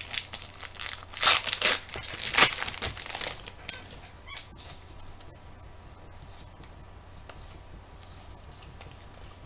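Crinkly trading-card pack wrapper crackling and tearing open, loudest in the first three seconds or so, then fading to faint rustles and light ticks.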